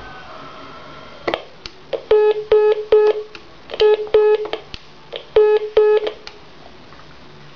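Clicks and short beeps on a telephone line: seven beeps in groups of three, then two, then two, each about a quarter second, with sharp clicks between them over a steady line hiss. The recording is presented as interference on the phone line.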